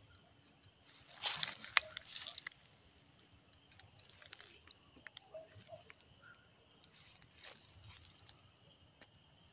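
Night insect chorus of crickets or katydids: steady high-pitched trilling. Brief rustling of leaves and handling noise about a second in, with scattered light clicks.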